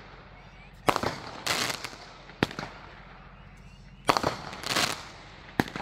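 Consumer aerial fireworks going off: a string of sharp bangs, spaced a second or two apart, with bursts of crackling after some of them.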